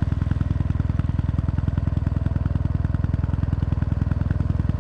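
Kawasaki W800's air-cooled parallel-twin engine idling steadily through its stock muffler with the baffle removed: an even, rapid, deep exhaust beat.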